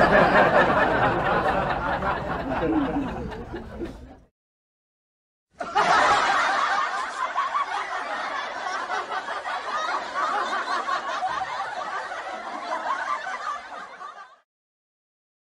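Laughter sound effect edited onto the soundtrack: a few seconds of laughing, a dead-silent gap of about a second, then a longer stretch of laughing that cuts off near the end.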